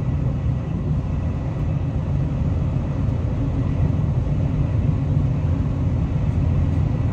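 Steady low rumble inside the passenger cabin of the Hokuto Limited Express, a diesel express train, as it runs along the track.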